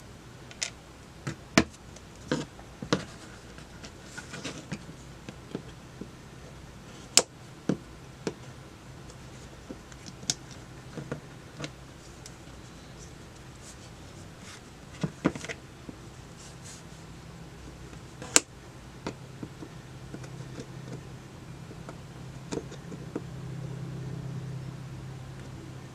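Scattered sharp clicks and taps of small hand tools working at a tiny fuse's brown outer shell on a workbench, with a low hum that grows louder near the end.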